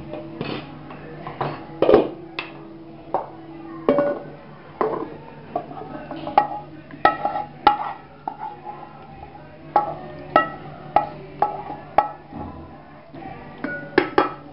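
Wooden spatula knocking and scraping against metal cooking pots while gravy is spooned onto rice: a string of irregular sharp knocks, each with a brief metallic ring, over a steady low hum.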